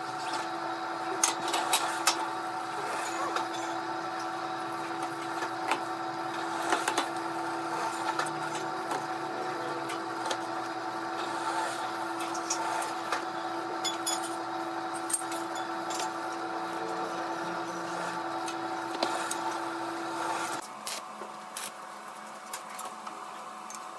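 A machine's electric motor running steadily with a hum at several fixed pitches, with scattered sharp clicks and knocks over it. It stops about twenty seconds in, leaving a quieter, lower hum.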